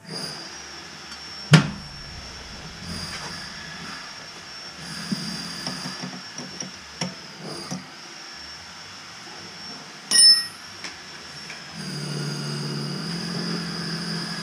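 Metal hand tools being handled at a toilet base on a concrete floor: a sharp knock, scattered light clicks, and one loud ringing metal clink about ten seconds in as a combination wrench is set down on the concrete. A faint steady high-pitched tone runs underneath.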